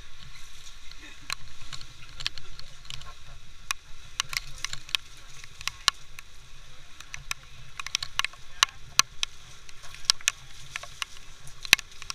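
Water taxi's engine running steadily as the boat moves along, with many sharp, irregular taps of water drops striking close by.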